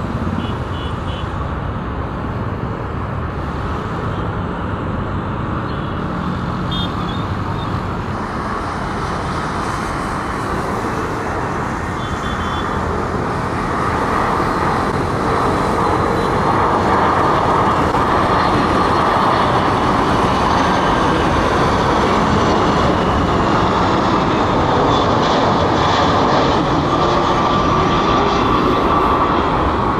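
Jet airliner engines running, a steady roar that grows louder about halfway through as an Airbus A330 comes in on final approach.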